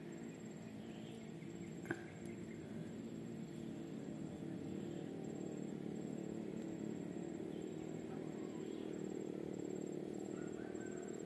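Faint outdoor background: a steady low hum with a faint high-pitched pulsing, and a single soft click about two seconds in.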